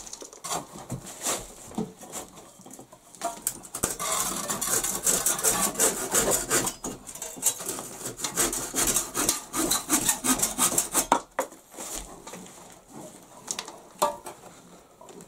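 Hand saw being drawn back and forth through a brick in short, steady strokes, from about four seconds in until about eleven seconds, with scattered scrapes and knocks before and after.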